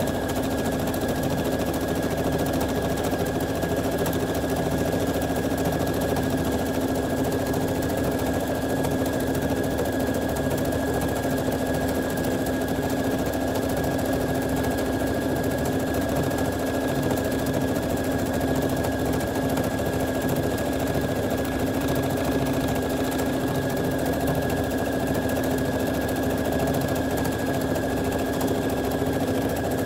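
Sewing machine running steadily without pause, stitching a straight seam through layers of water-soluble film with loose fibres sandwiched between them, its motor giving a constant hum.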